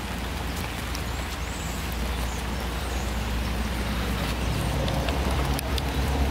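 Rain falling, with scattered drops ticking close to the microphone, over a steady low rumble that grows slightly louder.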